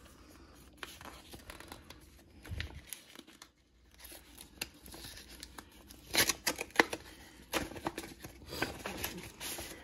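A paper envelope being torn open by hand: irregular short rips and paper rustling, sparse at first and busier from about six seconds in.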